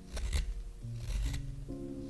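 Knife blade shaving a maple spoon blank: two quick crisp cuts near the start, then softer scraping, over soft background music with held low notes.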